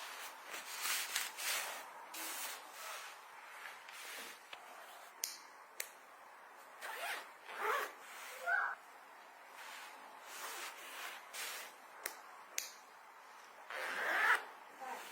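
A zipper pulled in a series of short strokes, with rubbing and handling noise from bags and packed items.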